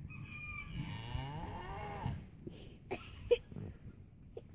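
A cow mooing once, a long call of about two seconds, followed by a few sharp knocks about three seconds in.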